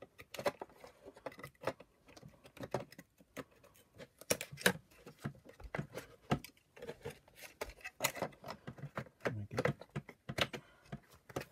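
Irregular light clicks and taps of plastic parts and wires being handled and pressed into place as the wiring and circuit board of a Shark NV602UK power nozzle are fitted back into its plastic housing.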